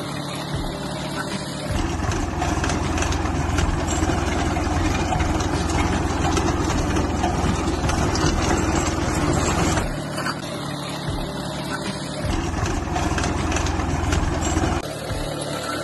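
Tractor engine running steadily while it pulls an inter-row rotary weeder through the soil. The sound steps louder and quieter a few times.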